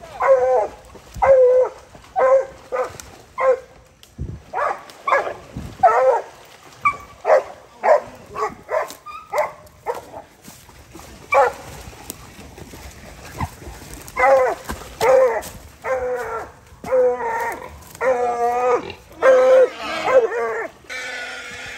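Hog dogs barking over and over, baying a wild hog, with a lull about halfway through and denser, longer barks near the end.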